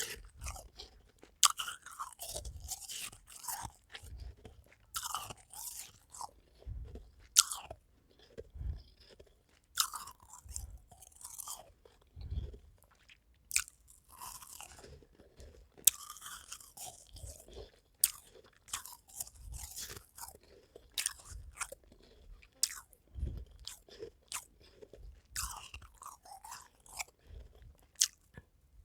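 Ice being bitten and chewed close to the microphone: sharp, irregular crunches and cracks, about one every second, with grinding chews between them.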